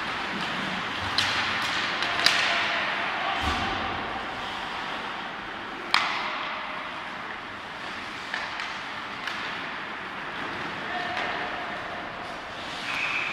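Ice hockey play in an arena: a steady scrape and hiss of skates on the ice, broken by a few sharp cracks of stick and puck, the loudest about six seconds in.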